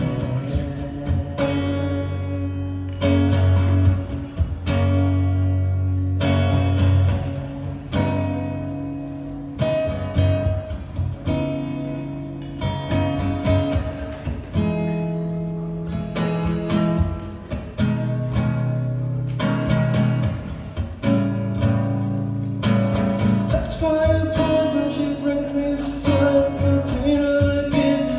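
A man singing to his own strummed acoustic guitar in a solo acoustic song.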